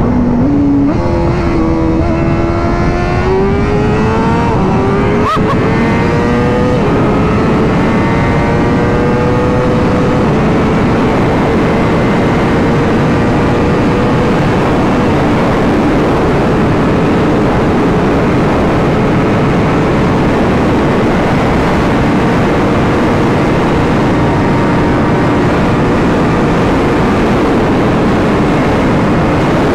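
Motorcycle engine pulling through the gears, its pitch climbing in steps over the first seven seconds, then holding a steady cruise under a thick rush of wind noise. A single sharp click about five seconds in.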